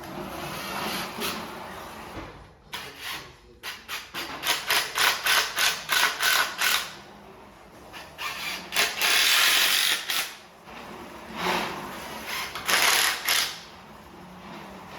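Tool work on the coop: a run of quick, evenly spaced knocks, about three a second, for a few seconds. Then several harsher, noisier bursts of a second or so each.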